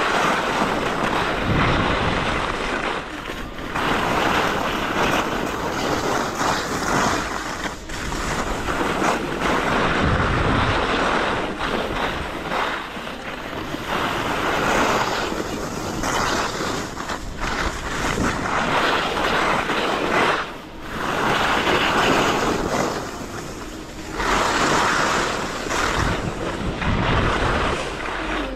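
Skis carving down a groomed snow slope: the edges scrape the snow in a hiss that swells and fades with each turn, every few seconds, with wind rushing over the microphone.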